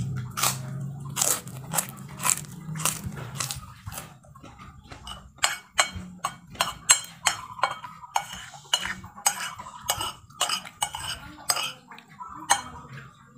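Metal spoon clinking and scraping against a plate during a meal, in irregular sharp clinks about one or two a second.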